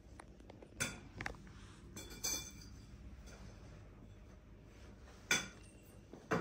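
Parts of a shoe rack knocking and clinking as it is being assembled: a handful of light clinks and knocks, the sharpest two near the end.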